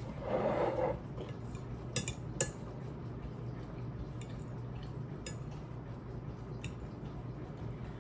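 A fork scraping and clinking against a dinner plate while someone eats: a short scrape near the start, then a few scattered sharp clicks.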